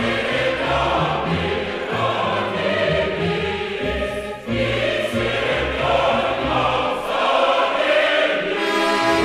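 Choral music: a choir singing over low sustained accompaniment notes.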